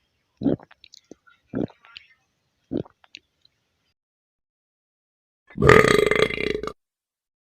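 A human burp: three short low throat sounds about a second apart with small mouth clicks, then a long, loud, rasping burp about six seconds in.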